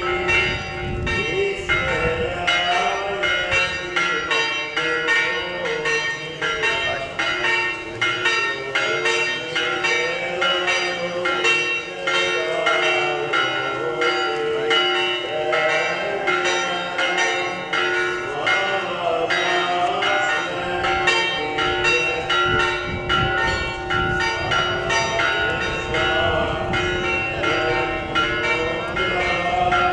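Orthodox monastery church bells rung in a fast, continuous peal, several bells struck over and over so their tones overlap. This is festive ringing during a feast-day procession around the church.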